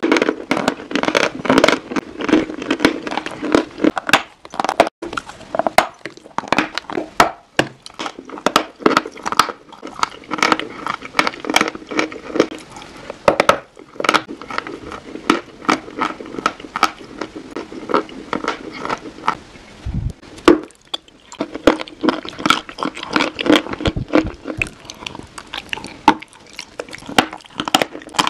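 Close-miked biting and chewing of a dry, crumbly white solid: rapid, irregular crunches and crackles.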